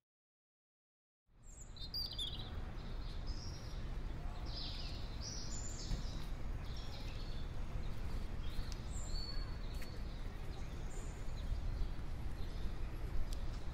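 Park ambience: birds chirping in many short calls over a steady low rumble. It starts abruptly about a second in, after dead silence.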